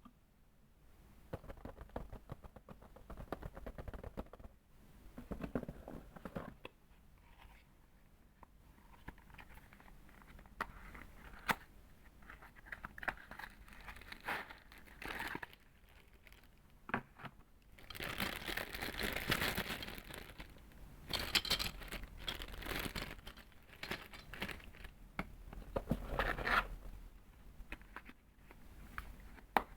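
Packaging of a keyboard being handled and opened: light clicks, rustling and crinkling, with a louder, denser stretch of crinkling about two-thirds of the way through.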